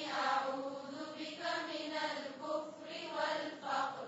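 Soft chanting of an Arabic supplication (dua) on a nearly steady pitch, broken into syllables about twice a second.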